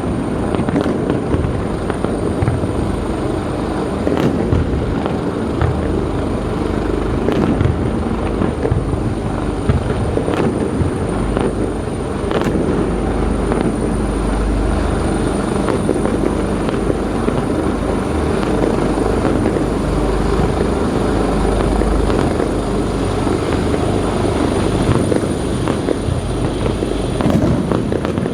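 Fireworks display going off continuously: a dense stream of bangs and crackles over a deep rumble that swells in the middle.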